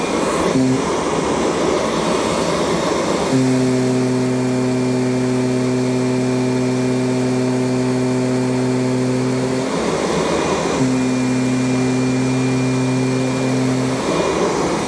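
Kirby Sentria 2 upright vacuum running over carpet with a steady motor hum. For the first few seconds, again around ten seconds in, and near the end, the hum gives way to a rushing noise.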